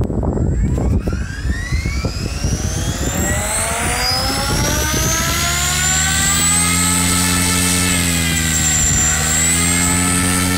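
TDR II radio-controlled helicopter spooling up: a whine from motor and rotor that climbs steadily in pitch over about five seconds, then holds steady at head speed, with a brief dip in pitch near the end. Rough wind noise on the microphone during the first few seconds.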